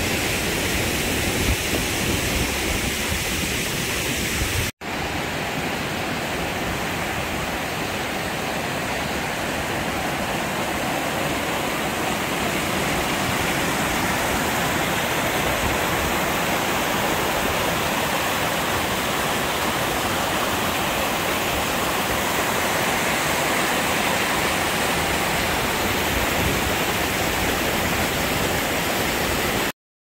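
Waterfall cascading over sandstone rocks: a steady rush of falling water. It drops out for an instant about five seconds in and cuts off suddenly near the end.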